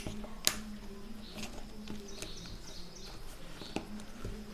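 A few small sharp clicks, the loudest about half a second in, as a metal heat-shield plate is pressed into place on a feature phone's circuit board. Faint bird chirps sound in the background.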